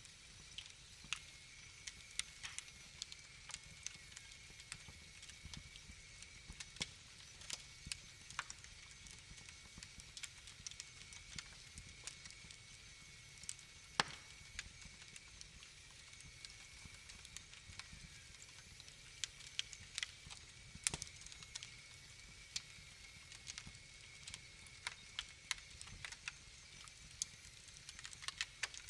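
Wood fire crackling in a fireplace: irregular sharp pops and snaps over a low rumble, with a few louder pops, one about halfway through and another about two-thirds of the way in.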